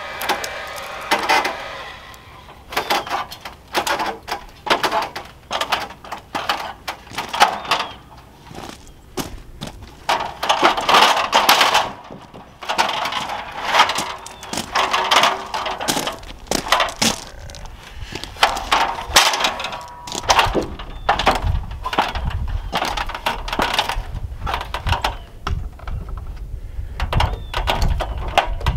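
Hammer knocks on framing lumber: irregular runs of sharp blows driving and setting nails in a wooden beam. A low rumble comes in about two-thirds of the way through.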